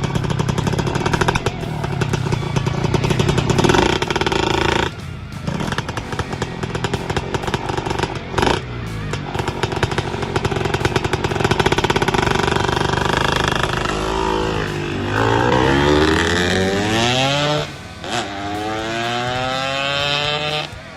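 Two-stroke single-cylinder engine of a Yamaha F1ZR bored out to 125cc, running with a PWK 28 carburettor. It is steady at first, then revved up and down repeatedly in the last third.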